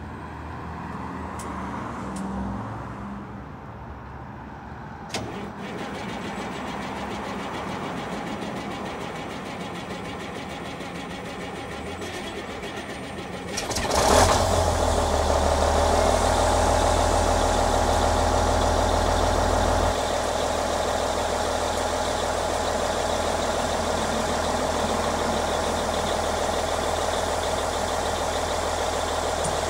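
A Cummins N14 inline-six diesel is cold-started. After a quieter stretch with a sharp click about five seconds in, it cranks and catches about halfway through, then runs steadily. It settles to a slightly quieter idle about six seconds after firing.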